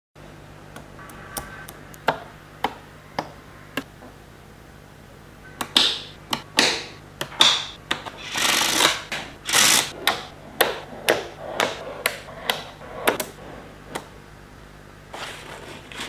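Small magnetic balls clicking and snapping together as they are handled, in a string of sharp, irregular clicks. Around the middle come a few longer scraping, rustling sounds as a clear plastic sheet is slid over a panel of the balls.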